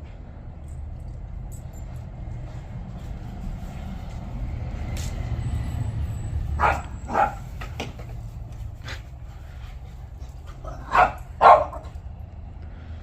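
Dog barking: two pairs of short barks, about four seconds apart, over a steady low rumble.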